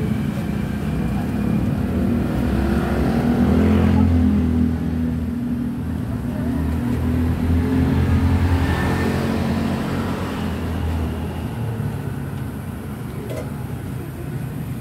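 Low engine rumble of passing road traffic. It swells about three to four seconds in and again around nine seconds, then eases off.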